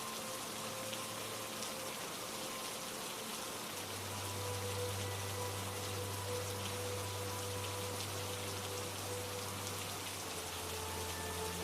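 Steady rainfall, an even hiss of drops, with soft sustained music notes held underneath that change pitch about four seconds in and again near the end.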